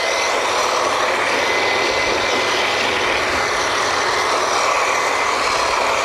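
Drilling rig machinery running: a loud, steady, unbroken mechanical noise of engines and pumps, with a faint high whine held throughout.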